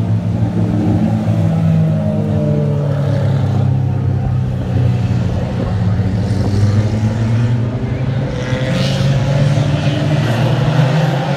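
Engines of a pack of front-wheel-drive Ridge Runner-class race cars lapping the track, a steady drone with pitch rising and falling as the cars come by and move away.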